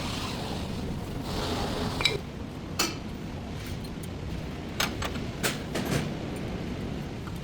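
Metal parts and tools being handled: a rustle of handling at first, then a series of sharp metallic clicks and clinks, about six in all.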